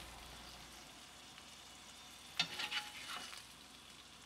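Faint sizzling of grease in a frying pan, with a spatula scraping and clicking against the pan about two and a half seconds in as a burger patty is lifted out.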